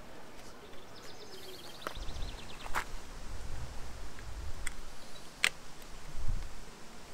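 Hands fitting a foam pod air filter onto a motorcycle intake: soft handling rumble and rustle with a few sharp clicks. A bird gives a quick high trill about a second in.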